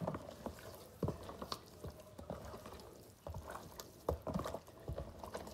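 Hands rubbing and squeezing raw chicken breasts coated in seasoning and lemon juice inside a plastic tub: irregular wet squishes and slaps, a little louder about a second in and again past the middle.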